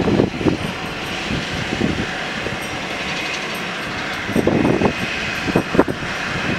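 Steady rushing noise from a parked Boeing 737-300, with irregular low wind buffeting on the microphone, heaviest from about four and a half to six seconds in.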